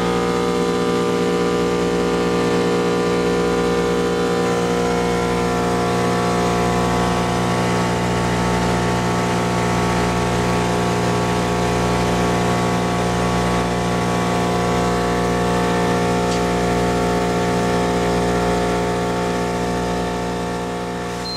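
Vacuum-forming machine's vacuum pump running steadily with an even hum, holding the plastic sheet drawn down over the pattern; it fades away near the end.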